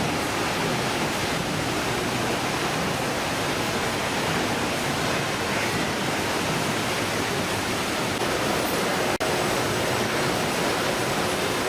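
Steady rushing noise of sea water and wind, unbroken except for a brief dropout about nine seconds in.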